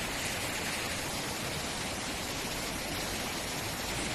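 Steady, even outdoor rushing noise with no separate events, like flowing water or wind.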